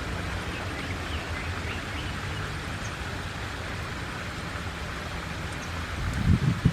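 Outdoor background noise: a steady low rumble under an even hiss, with a few faint bird chirps in the first half and some low thumps near the end.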